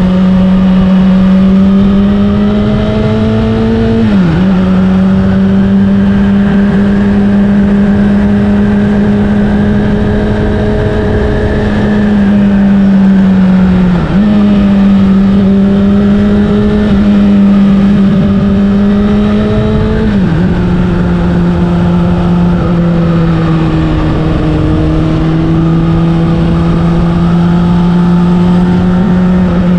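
Honda CBR600RR's inline-four engine running through an Akrapovic exhaust while the bike rides along at a steady engine speed. The engine note dips briefly three times, about a third of the way in, near the middle and about two-thirds in, each time settling back to a steady pitch.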